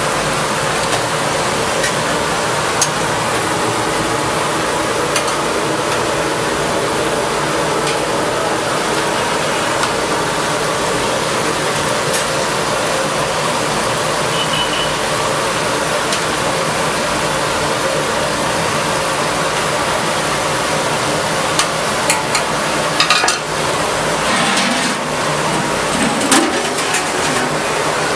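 Chicken pieces deep-frying in hot oil in an iron kadai, a steady, even sizzle. Now and then a metal utensil clicks against the pan, more often near the end.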